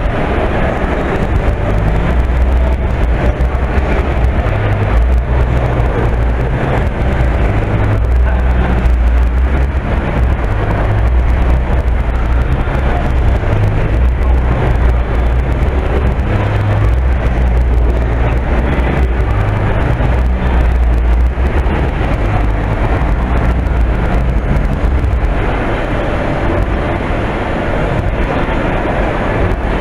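Steady ambient noise of a large indoor shopping mall: a constant low rumble under a wash of hall noise, with no distinct events.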